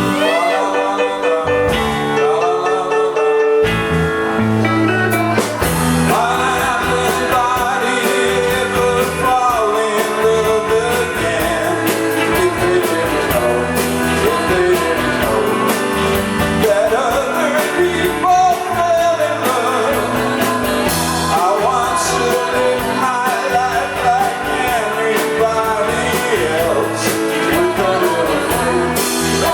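Live rock band playing a song, with electric guitar and a lead vocal singing over the full band.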